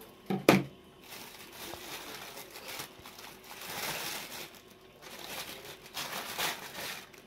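Plastic oven roasting bag crinkling and tearing as hands pull it open around a roast duck, with a short sharp knock about half a second in.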